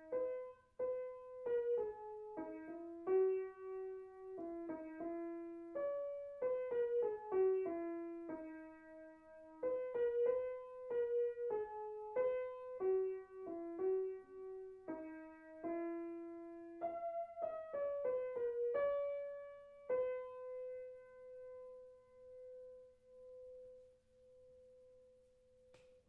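Background music: a piano playing a simple melody note by note, ending on one long held note that slowly fades away.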